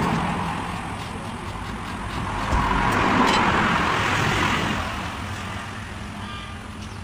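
Road traffic: a passing vehicle's noise swells and then fades away over a few seconds. A couple of faint clicks come from the knife cutting the coconut.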